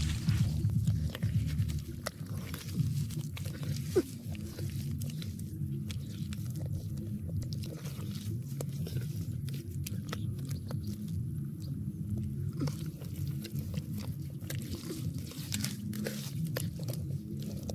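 Bare hands digging and squeezing through wet mud, with scattered wet squelches and clicks over a steady low rumble.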